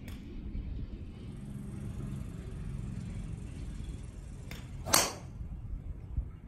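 Golf driver clubhead striking a teed ball at full swing speed: one sharp, loud crack about five seconds in.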